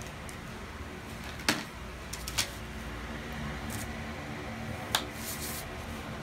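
A clear plastic pattern ruler and pencil handled on kraft paper: a few sharp taps and clicks, the loudest about a second and a half in and again near five seconds, with a short paper scrape just after, over a steady background hum.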